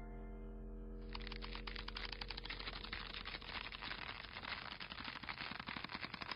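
Dot-matrix printer clattering as it prints, a fast, dense run of print-head clicks that starts about a second in, after the last ringing of an electronic chime dies away.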